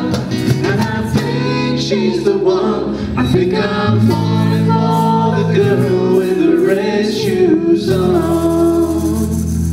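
Live band playing a song: sung vocals over guitar and bass, with a held sung note near the end.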